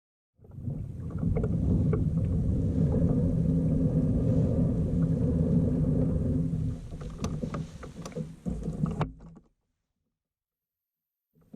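Low, heavy rumble of a kayak moving on the water, with a few sharp clicks around seven to nine seconds in. It starts half a second in and cuts off abruptly after about nine seconds.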